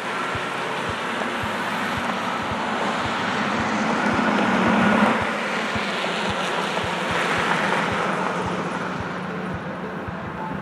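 Vehicle noise: a broad rushing sound that swells to its loudest about five seconds in, drops off, then slowly fades, with faint low thumps underneath.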